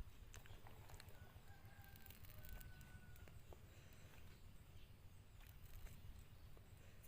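Near silence with a faint, distant rooster crowing, heard about a second in and again around two and a half seconds in.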